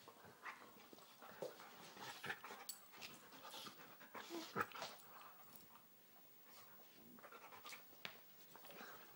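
Two dogs scuffling over a chew bone: faint, irregular breathing, snuffling and mouthing noises, with a few louder scuffles near the middle.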